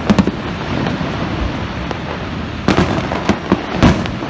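Aerial fireworks exploding: a couple of sharp bangs just after the start, then a cluster of bangs about three seconds in, over steady background noise.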